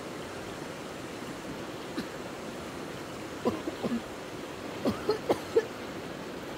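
Steady rushing of water, with a scatter of short sharp knocks or splashes: one about two seconds in, then a quick cluster of three or four at about three and a half seconds and another of four at about five seconds.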